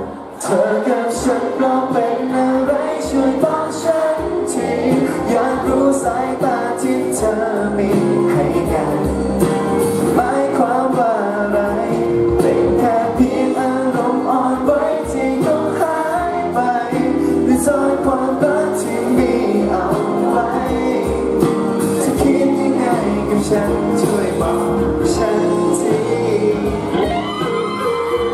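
Live pop performance: a man singing into a handheld microphone over backing music with a steady beat.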